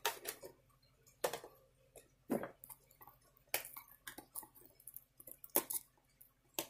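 Plastic shrink-wrap on a trading-card pack crinkling and crackling as it is handled and worked open, in short irregular crackles with a few sharper clicks.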